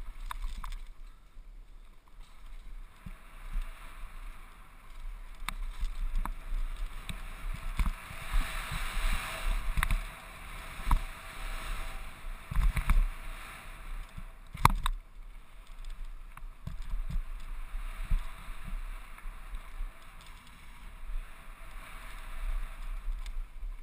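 Downhill mountain bike ridden fast over rough dirt trail, heard from a helmet-mounted camera: wind rushing over the microphone with rumbling buffeting, and the bike rattling and knocking over bumps, with one sharp knock about fifteen seconds in.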